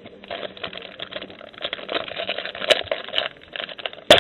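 Trading card packs and cards being handled: a dense crinkling and rustling of the pack wrapper and card stock, with a sharp snap near the end.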